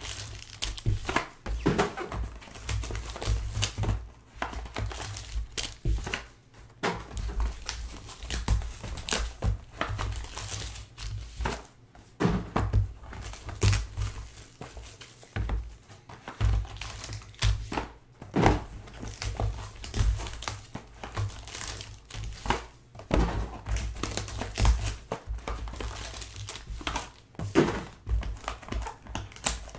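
Foil-wrapped trading card packs crinkling as they are unboxed and stacked on a table, with occasional dull thuds of boxes being handled.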